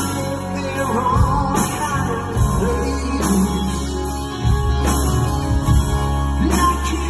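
Live rock band playing loud through a PA: a man sings lead over strummed acoustic guitar, keyboards and a heavy low end.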